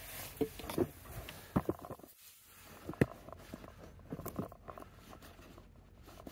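Scattered light knocks, taps and rustles of hands handling a flexible PVC spa pipe, with one sharp click about three seconds in.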